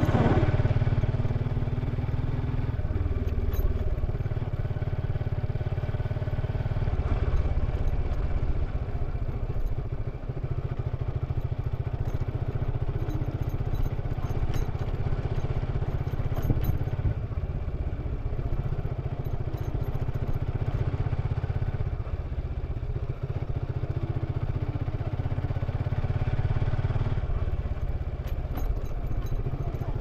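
Suzuki Gixxer 155 motorcycle's single-cylinder four-stroke engine running steadily through its exhaust while riding at low speed.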